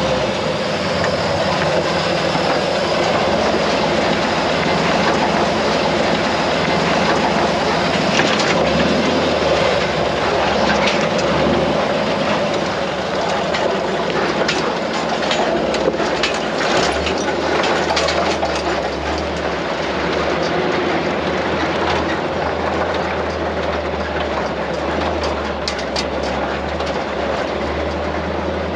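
Off-road recovery truck driving slowly over a rocky trail: a steady engine and drivetrain drone with rattles and sharp knocks from the truck and its recovery gear. The low drone grows stronger about nine seconds in and again a little past halfway.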